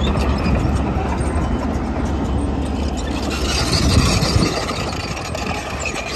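Diesel engine of a tracked crawler machine running steadily with a low, heavy rumble, swelling briefly about four seconds in.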